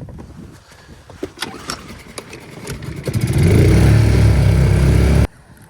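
A motorboat's engine running loud and close for about two seconds, then cutting off abruptly. Before it come scattered light taps and clicks.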